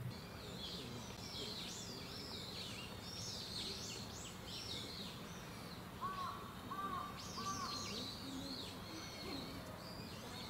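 Small birds chirping and twittering throughout, with three short, lower notes in a row a little past the middle, over a faint steady low hum.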